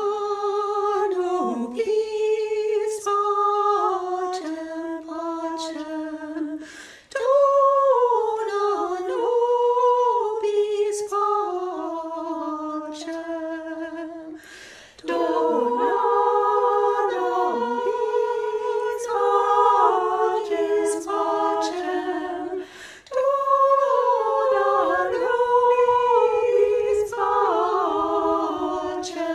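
Women's voices singing a slow hymn unaccompanied, in long held phrases of about eight seconds each with short breaths between them.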